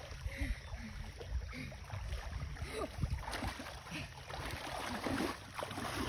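Pond water splashing and sloshing as two people wade through it, hauling a large catfish, the splashing getting busier about halfway through.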